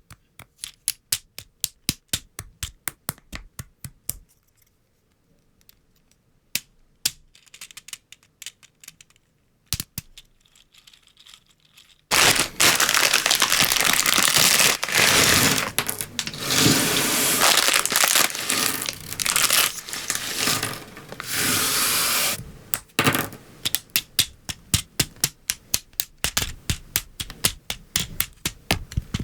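LEGO Technic pieces snapping and clicking together in quick runs of sharp clicks. About twelve seconds in comes a loud stretch of crinkling and rustling that lasts about ten seconds, then the quick clicking picks up again.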